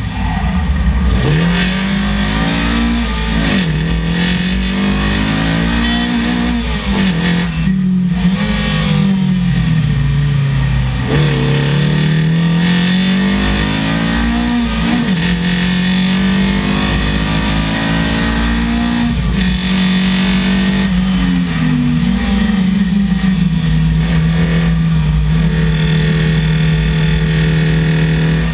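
Datsun 1200 rally car's swapped-in Nissan SR20VE four-cylinder engine at race pace, its note climbing and dropping again and again through gear changes and corners between about 4,000 and 6,000 rpm, then holding a steady pitch over the last few seconds.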